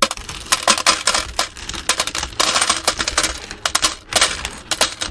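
Coins clinking and dropping: a rapid, irregular run of sharp metallic chinks, a sound effect.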